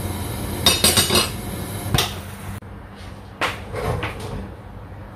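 Metal ladle clattering against a pan of boiling chicken as it is stirred, with a quick run of clinks about a second in and another at two seconds. Then a few duller knocks from kitchenware, over a low steady hum.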